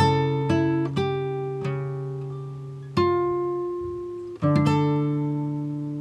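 Background music on acoustic guitar: plucked notes and chords struck a few times and left to ring out and fade.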